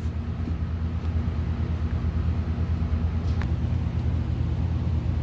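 A steady low mechanical drone with a fast, even pulse, like a motor running, with one faint click a little past the middle.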